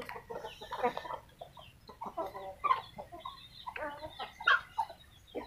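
Chickens clucking in short, irregular calls.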